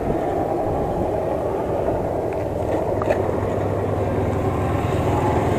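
Passing highway traffic: a steady rumble of vehicles going by, with a low drone building over the second half as a heavy vehicle comes closer.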